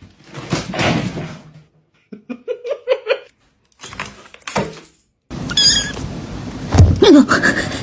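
A domestic cat meowing in short calls, mixed with knocks and handling noise across several abrupt cuts.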